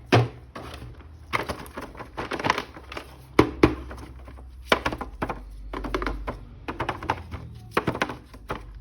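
Hands handling plastic toy packaging and an action figure: a run of irregular clicks and knocks with rustling between them.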